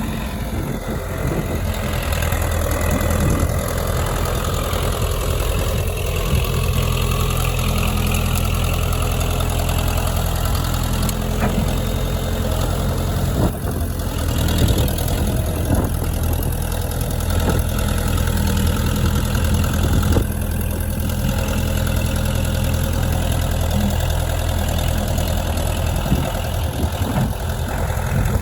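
Engine of a piece of heavy equipment running steadily, with a few short knocks along the way.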